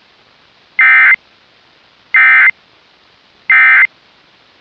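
Three short bursts of mock EAS SAME data tones, the End of Message bursts that close an alert, each a harsh warbling beep under half a second long, about a second and a half apart, over a faint hiss. The tones were made so they cannot trigger real EAS equipment.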